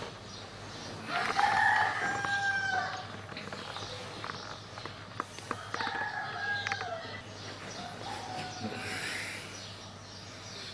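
Rooster crowing three times, each crow a long held call that drops in pitch at the end, the last one fainter. A few light clicks sound between the crows.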